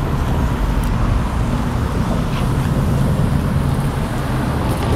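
City street traffic: engines and tyres of slow, backed-up cars passing close by, a steady low noise.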